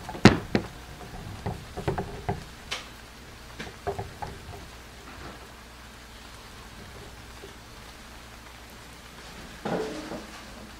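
A plastic doll knocking and bumping against a wooden tabletop as it is set upright, a run of light knocks in the first four seconds, over steady rain.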